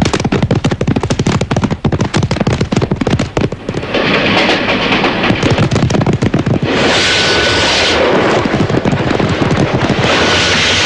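Dense, rapid clatter of many horses galloping. About seven seconds in it gives way to the steady rush of a train running on the rails.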